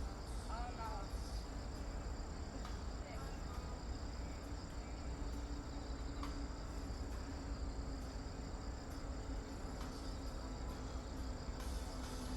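Insects chirping in a steady high-pitched chorus, over a constant low rumble.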